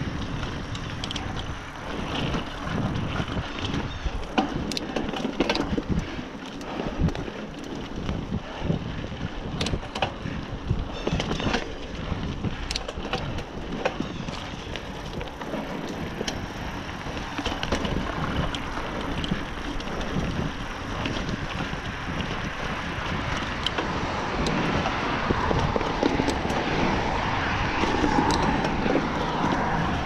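Specialized Rockhopper hardtail mountain bike ridden along a trail: steady tyre rumble broken by frequent clicks and rattles over bumps, with wind on the microphone growing louder near the end.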